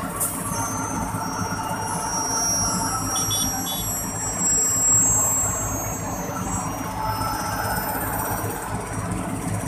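Vehicle engine running steadily with a low rumble.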